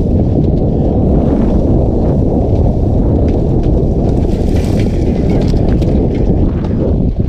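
Wind buffeting a helmet-mounted camera's microphone while a downhill mountain bike rolls fast over dirt, with scattered clicks and rattles from the bike and tyres.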